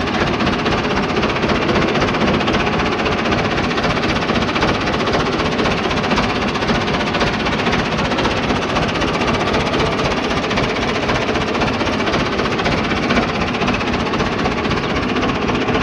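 1978 Massey Ferguson 165 tractor engine running steadily, with a fast, even knocking clatter.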